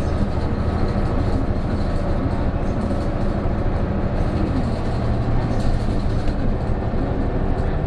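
Isuzu PJ-KV234L1 city bus's diesel engine and drivetrain running steadily under way, heard from inside the passenger cabin, with a low drone that swells somewhat about five seconds in.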